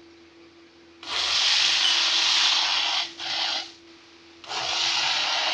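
Hand-held immersion blender running in a steel pot of milk and chopped mango: it switches on about a second in, stops and restarts twice as it purees the shake.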